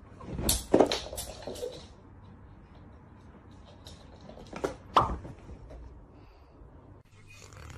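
A few short, sharp knocks or plops over faint room noise: a cluster about half a second to a second in, and a pair around five seconds in.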